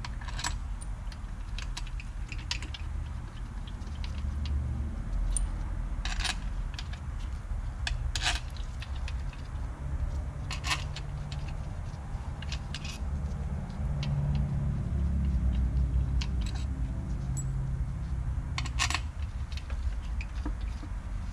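Steel bolts clinking against each other and against the intake manifold as they are handled and set into their holes: scattered sharp metallic clicks, a few seconds apart, over a low steady rumble.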